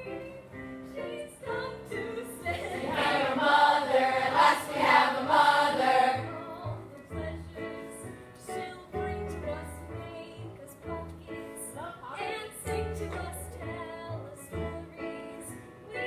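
A song with singing over held bass notes and a steady cymbal tick. A louder passage of many voices singing together runs from about three to six seconds in.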